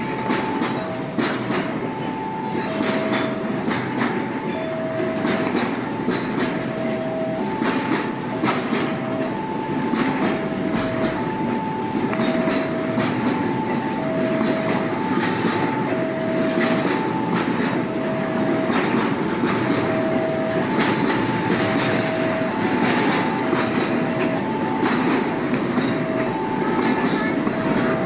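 Container freight train rolling past with a steady rumble and repeated wheel clicks over the rail joints. Over it, the level-crossing warning alarm sounds a two-tone high-low signal over and over, warning that a train is on the crossing.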